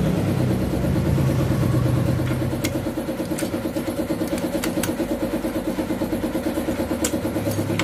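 A small engine idling steadily with an even, fast pulsing beat. A few sharp clicks sound over it.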